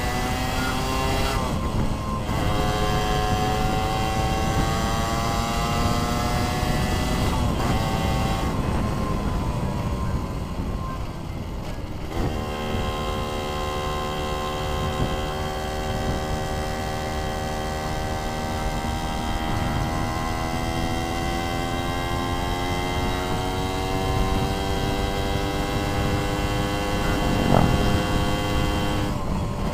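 Suzuki Satria 120 single-cylinder two-stroke motorcycle engine on the move, shifting up through the gears. The revs drop at each change, about two, eight and twelve seconds in. After that the engine pulls slowly and steadily higher in revs, with wind rushing over the microphone.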